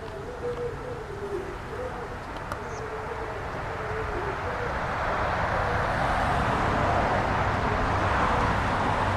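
A bird giving low hooting calls through the first few seconds, then a rushing noise that swells from about four seconds in.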